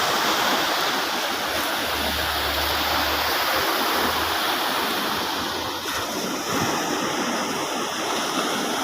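Steady rush of sea surf washing onto the beach, a continuous even noise.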